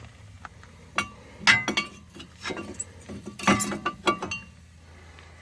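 Steel brake caliper bracket and its bolts being handled and fitted over the rotor: a handful of sharp metal clinks and knocks, some ringing briefly.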